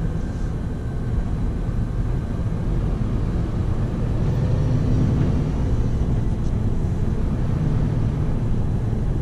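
Scania P280 delivery truck's diesel engine running, with tyres on a wet road, heard inside the cab while driving. A steady low drone that swells a little about four seconds in.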